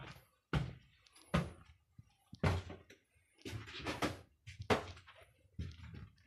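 Footsteps thudding on the wooden floorboards of a timber cabin, about one step a second.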